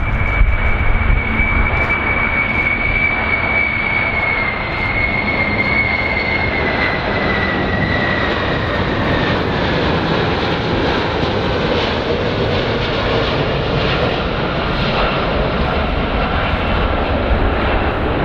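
Boeing VC-25A's four General Electric CF6-80C2 turbofan engines on landing approach as the jet flies past: a steady rumble with a high whine that falls slowly in pitch as the aircraft passes.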